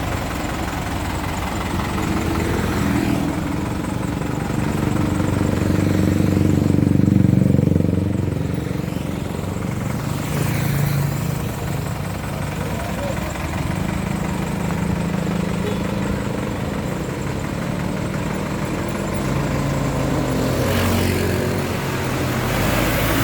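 Road traffic: the engines of passing vehicles run continuously. The loudest vehicle goes by about seven seconds in, its engine note bending in pitch as it passes.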